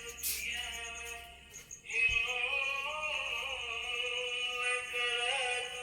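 Music with singing playing in the background, a sustained wavering vocal line over accompaniment. A sharp click comes near the start and a low thump about two seconds in.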